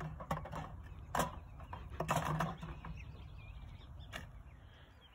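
Several short, sharp clicks and knocks, about a second apart, over a steady low rumble.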